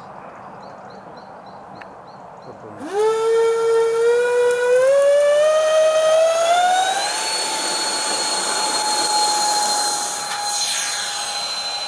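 Twin electric ducted fans of a Freewing Su-35 model jet spooling up for takeoff. A loud, high whine starts about three seconds in, rises in pitch for about four seconds, then holds steady.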